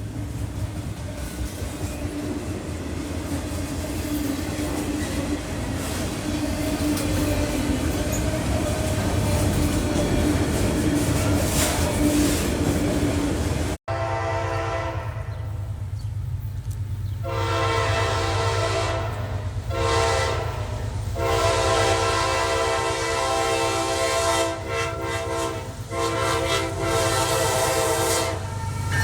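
Diesel train rumbling with a low engine tone, growing steadily louder. After an abrupt cut, a locomotive horn sounds several blasts over the rumble of the engine, the longest lasting a few seconds.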